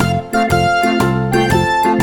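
Upbeat background music of keyboard or piano notes over a steady bass rhythm.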